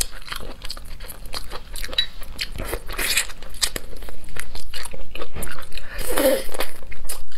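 Close-up biting and chewing of spiced chicken feet: many short, sharp crunches and crackles as the skin and cartilage are bitten off the bone.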